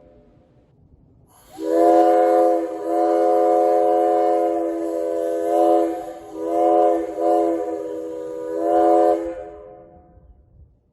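A 3D-printed plastic replica of a Northern Pacific five-chime steam whistle blown on compressed air: a chord of several steady tones with air hiss. It starts about a second and a half in with a long blast of about four seconds, follows with three shorter blasts that drop quieter between them, and dies away near the end.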